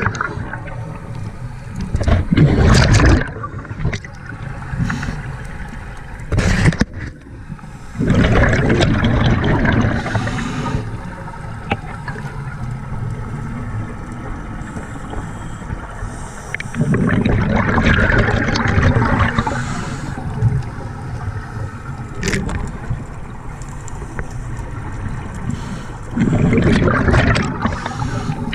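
Scuba regulator breathing underwater: a steady hiss of water noise, broken every six to nine seconds by a loud gurgling rush of exhaled bubbles.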